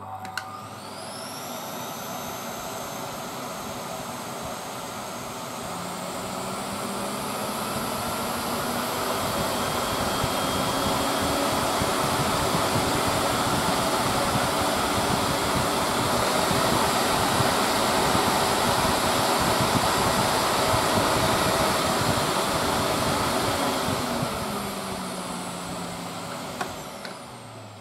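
Electrolux Z2020 Super Boost cylinder vacuum cleaner switched on with a click, its motor spinning up and running on the electronic power control's 400 setting. From about six seconds in, the motor's pitch and loudness climb for several seconds, hold steady, then fall back near the end, where a click comes and the motor runs down.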